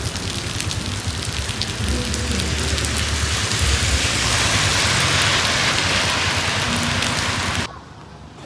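Heavy rain pouring down in a dense, steady hiss with many separate drops ticking close by; it cuts off suddenly near the end.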